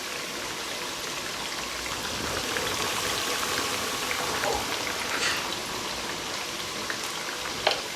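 Tomato paste with blended pepper and onion frying in a pot: a steady sizzle, with a couple of faint clicks partway through.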